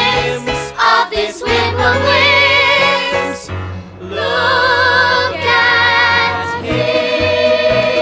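Stage-musical chorus of voices singing long held notes with vibrato over band accompaniment, with a short break about three and a half seconds in. Near the end the voices give way to the instruments holding a chord.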